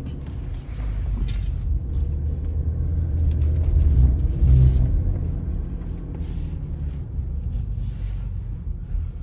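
BMW E60 530d driving slowly with a low humming, vibrating rumble, the strange noise that appears at 20–40 km/h when turning left and whose cause has not been found. The hum swells to its loudest about four to five seconds in, then eases off.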